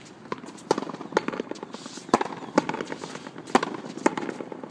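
Racket frontón rally: sharp cracks of the ball coming off the racket strings and off the frontón wall, roughly two a second, each with a short echo.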